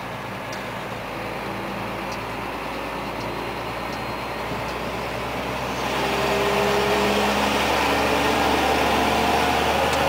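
Scania 124L 420 truck's straight-six diesel engine and road noise heard from inside the cab while driving, steady at first and growing louder about six seconds in.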